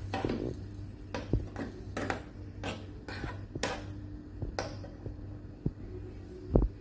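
Steel spoon scraping and clinking against a small steel saucepan while thick semolina porridge is stirred, in irregular strokes over a steady low hum. A louder low thump near the end.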